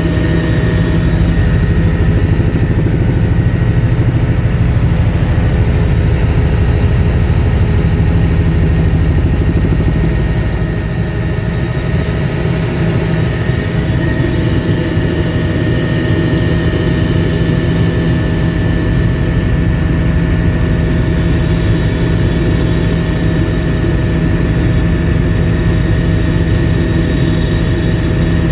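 Helicopter in flight, its engine and rotor droning loudly and steadily, heard from inside the passenger cabin.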